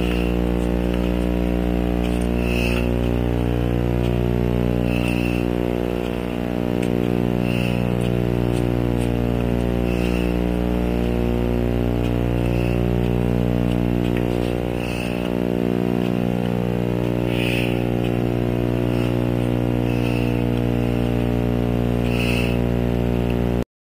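A loud, steady humming drone with many even overtones, with a faint high blip about every two and a half seconds; it cuts off suddenly just before the end.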